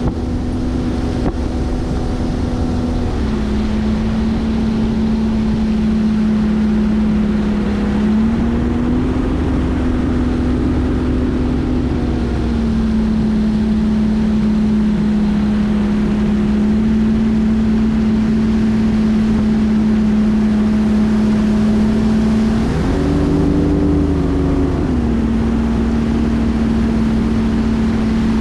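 Bass boat's outboard motor running steadily under way, with wind noise. Its pitch shifts several times as the throttle changes, with a brief higher surge about three-quarters of the way through.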